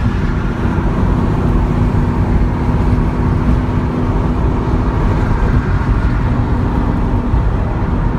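Porsche 928 S4's 5.0-litre V8 and tyre noise heard from inside the cabin while cruising on a highway: a steady drone with a faint constant engine tone.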